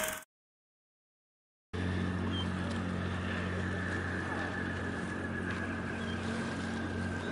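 A film-projector rattle cuts off right at the start, and after about a second and a half of silence a steady low drone sets in with wind and water noise: the container ship MOL Premium's engine running as it enters the harbour, its funnel putting out black smoke.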